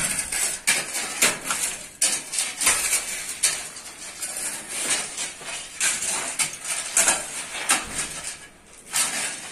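Hand hammering on a reinforced concrete slab: sharp metallic clinks and knocks of steel striking concrete and rebar, about two unevenly spaced blows a second.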